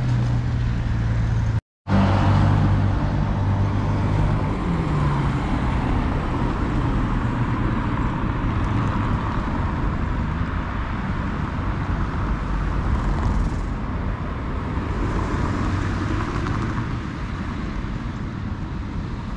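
City road traffic: cars driving past on the street, a low engine hum in the first few seconds, then the rush of passing cars swelling and fading. The sound cuts out for a moment about two seconds in.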